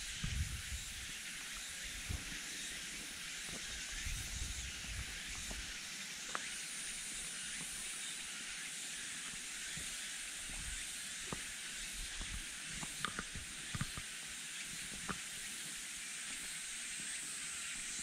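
A steady, high-pitched insect chorus hisses through the forest, with soft, scattered footsteps on a dirt trail.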